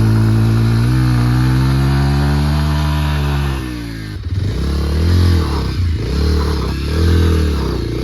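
Bajaj Pulsar motorcycle engine running at steady throttle, then easing off about three and a half seconds in and revving up and down several times.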